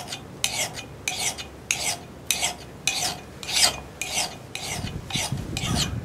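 Flat hand file rasping across the steel cheek of a Council Tool 24-inch boys axe held in a vise, in steady strokes, a little under two a second, about eleven in all. The file is thinning the cheek behind the edge to take off a hump, feathering out from the center and staying off the bit, as a first step in reworking the factory grind.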